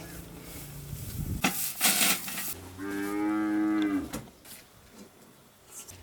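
A cow mooing once, a single call of just over a second, after a brief noisy rustle.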